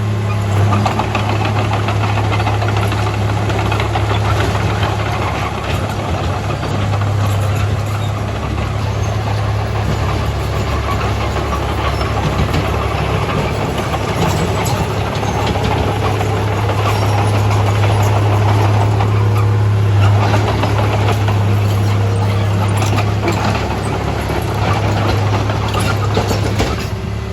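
Komatsu D31A bulldozer's diesel engine running steadily with a strong low hum and a constant clatter.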